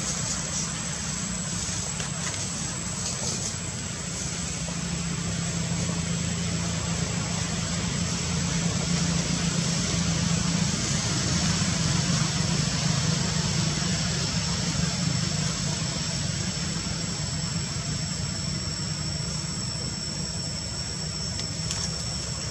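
Steady background hum, low and engine-like, swelling slightly about halfway through, under a constant thin high-pitched whine.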